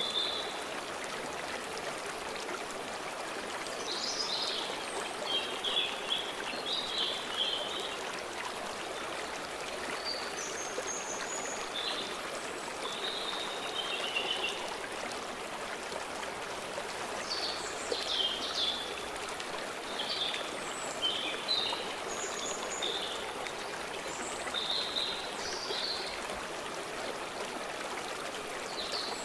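A stream flowing steadily, with songbirds singing short phrases now and then above it.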